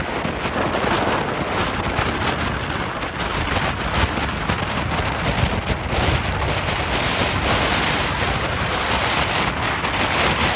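Strong gusting wind buffeting the microphone, with surf washing on the beach beneath it.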